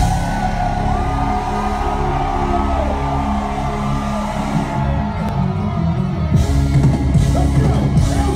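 Loud live concert music over a club PA, recorded on a phone: deep held bass notes under steady higher tones, growing louder with sharper hits about six seconds in.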